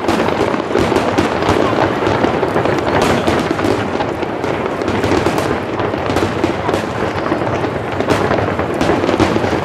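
Aerial fireworks shells bursting in a rapid, unbroken barrage: many bangs overlap with crackling, keeping the noise loud and dense throughout.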